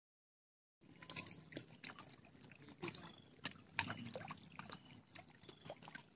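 Faint waterside sound: small water lapping and trickling, with many scattered little clicks and a few short high chirps. It starts suddenly after a moment of silence.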